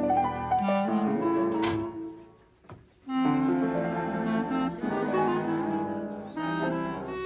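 Instrumental music playing, with several pitched notes sounding at once; it fades out briefly about two and a half seconds in, then comes back in.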